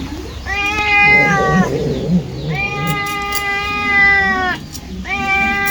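A domestic cat meowing: three long, drawn-out meows held at a fairly steady pitch, the middle one the longest at about two seconds, the last starting near the end.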